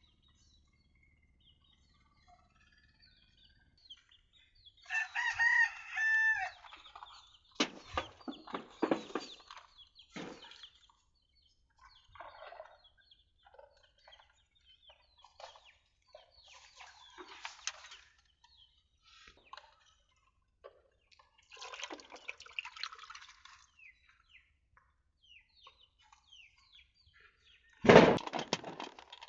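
A rooster crows once about five seconds in, a held call that drops at the end. Short, irregular noises are scattered around it, and a loud sudden noise comes near the end.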